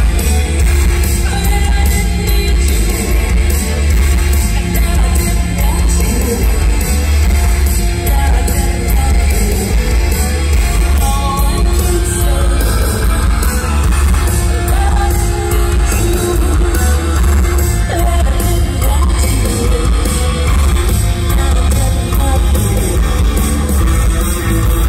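Rock band playing live: a woman sings lead over electric guitar, bass and drums with a steady beat.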